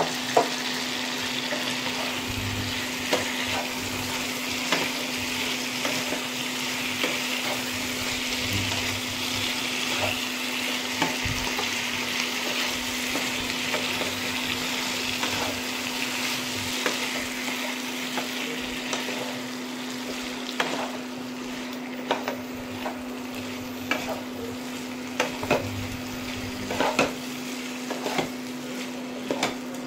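Chicken pieces, sauce and vegetables sizzling in a nonstick wok while being stirred, with scattered scrapes and taps of the spatula against the pan. The sizzle eases off about halfway through, and a steady low hum runs underneath.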